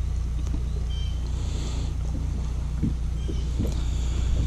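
Steady low hum of a bass boat's motor, with two faint, short, high chirps over it.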